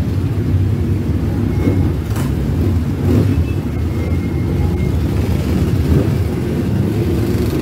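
Many motorcycles riding past in a continuous column, their engines running together in a steady, loud drone.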